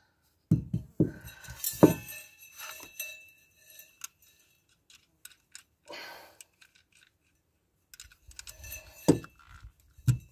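Metal exhaust parts clinking and knocking as a muffler pipe and its clamp are handled and forced into place: a quick cluster of clanks in the first two seconds, a short scrape midway, then two more knocks near the end.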